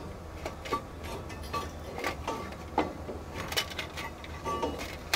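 Irregular metallic clinks and knocks as an exhaust manifold is worked by hand into place against the engine and surrounding parts, over a low steady hum.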